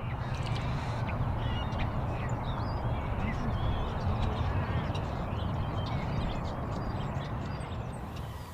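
Birds calling, many short chirping calls over a steady low rumble.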